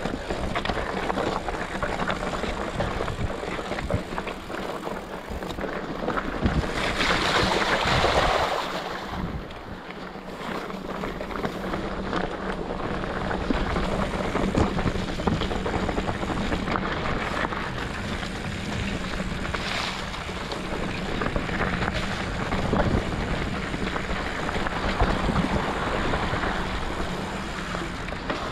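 Steady wind rushing over the microphone, swelling for a second or two about seven seconds in.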